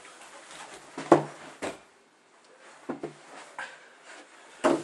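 A person scrambling off a bed and hurrying out through a doorway: a handful of separate thumps and knocks, the loudest about a second in and another near the end.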